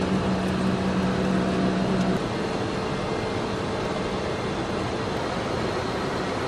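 Steady cockpit noise of a KC-10 Extender tanker in flight: an even rush of airflow and jet engine noise. A low steady hum under it stops about two seconds in, leaving the rush slightly quieter.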